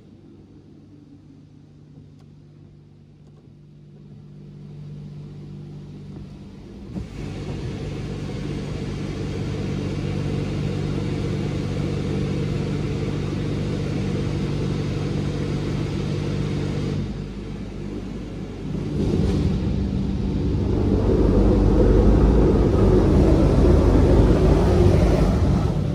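Oasis Eclipse touch-free in-bay car wash at work, heard from inside the car. A low steady pump hum comes first; from about seven seconds in, high-pressure water spray hisses and drums on the car. The spray drops off briefly and comes back louder near the end as the gantry passes over.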